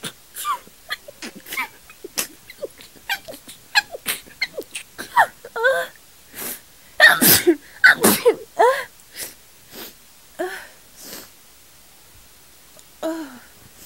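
A woman's sneeze build-up: a run of short, pitched, gasping breaths for about six seconds, then two loud sneezes about seven and eight seconds in that she is trying to stifle, followed by smaller breaths.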